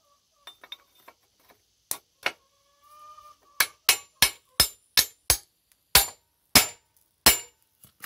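Hand hammer striking the steel pin and linkage of an old ditcher backhoe. A few light taps and two harder blows are followed by a run of about nine sharp, ringing metal-on-metal blows, a few per second.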